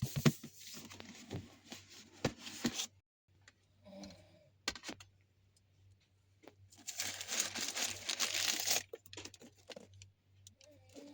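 Packaging being torn and crumpled while a sneaker box is unwrapped, in two long crinkling bursts with handling clicks and knocks between them. A short, faint pitched sound comes near the end.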